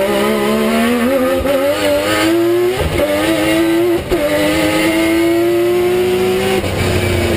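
Rally car engine heard from inside the cockpit, pulling hard with its note climbing. The note breaks sharply twice, about three and four seconds in, where it shifts up a gear. It eases off near the end.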